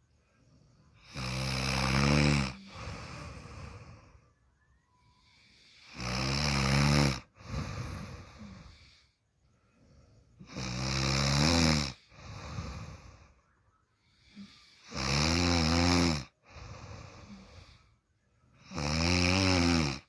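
A person snoring loudly, five snores about four seconds apart, each followed by a quieter breath out.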